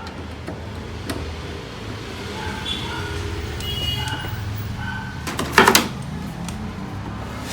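Plastic printer casing being handled and its side cover fitted, with a sharp plastic clack a little past halfway.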